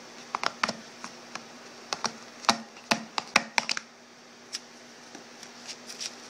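Cardboard knife box handled and opened by hand: a quick run of irregular clicks and taps as the lid is worked off, from about half a second to nearly four seconds in, then a few scattered taps.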